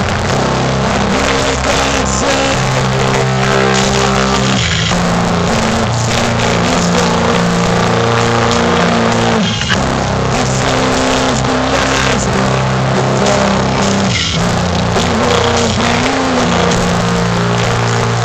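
Heavy metal band playing live: distorted electric guitars and bass holding chords that change every second or two, loud and steady, in a harsh, poor-quality recording.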